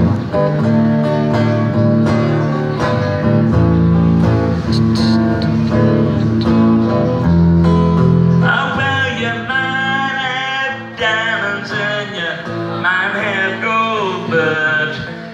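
Electric guitar playing live: full chords over a heavy low bass part, then, about halfway through, the low part drops away and a lead line of bending, gliding notes takes over.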